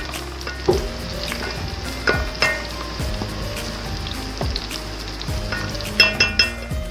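Onions, nigella seeds, cumin and curry leaves sizzling in hot oil while being stirred, with the stirring spoon clinking against the pan; a quick run of sharp clinks about six seconds in.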